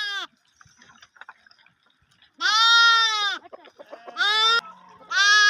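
Lambs bleating: high-pitched bleats, a long one about two and a half seconds in, a short one a second later, and another starting near the end, with the tail of an earlier bleat at the very start.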